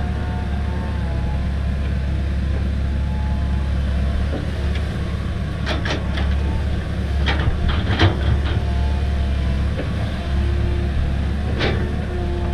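Komatsu hydraulic excavator's diesel engine running steadily with a hydraulic whine as the machine swings and dumps a bucket of dirt and rocks into a dump truck's steel bed. A run of clatters and knocks comes as the load lands, about six to eight and a half seconds in and loudest around eight seconds, with one more knock near the end as the bucket goes back into the ground.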